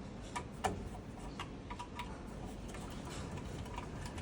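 A handful of light, sharp clicks and taps at uneven intervals over a low steady hum.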